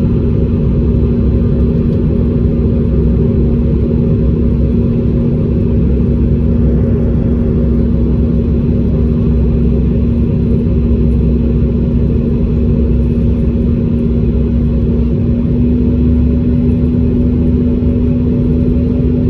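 Airliner cabin noise during the approach: a steady, loud low drone of jet engines and airflow with a constant hum running through it.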